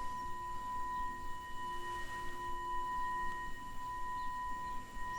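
A steady, high, pure ringing meditation tone with a slight waver, over a fainter lower tone that fades out near the end.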